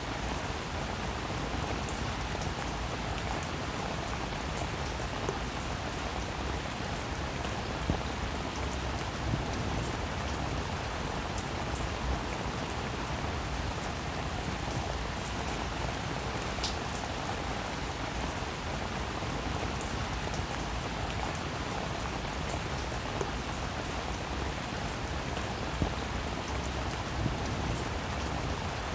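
Steady rain falling, a dense hiss of drops with scattered sharper individual drops ticking on a surface.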